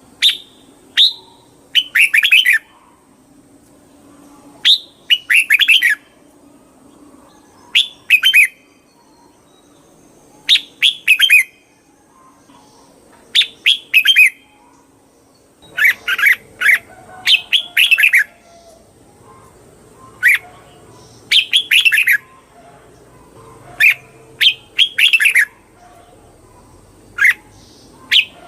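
Red-whiskered bulbul singing: short, bubbly phrases of a few quick notes, repeated every two to three seconds, about a dozen phrases in all.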